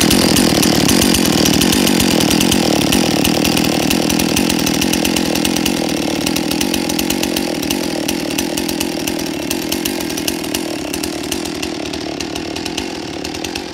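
Husqvarna 51 two-stroke chainsaw engine running steadily with no revving, slowly getting a little quieter.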